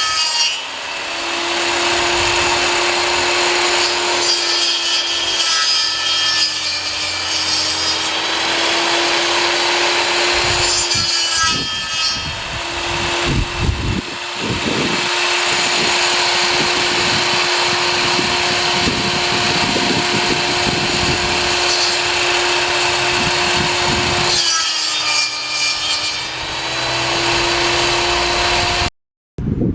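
Table saw blade grinding into a wooden tree stump: a steady motor whine under a rough cutting and rasping noise, the pitch sagging briefly three times as the blade is loaded. The sound cuts off abruptly just before the end.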